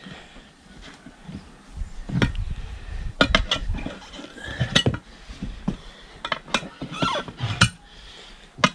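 A string of irregular sharp metallic clinks and knocks: hand tools striking and scraping the steel rim of a small tractor wheel while its tyre is worked on.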